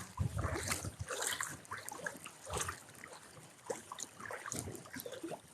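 Water sloshing and splashing around legs wading in shallow river water, in uneven surges.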